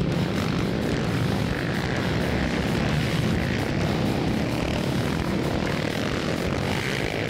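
A steady engine drone, running at an even level.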